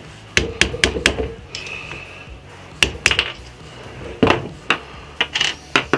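Hammer tapping the handle of a screwdriver to drive the spacer out of the upper bearing eye of a KTM PDS shock absorber. There are about ten sharp knocks, four quick ones at first and then slower taps, and some leave a brief metallic ring.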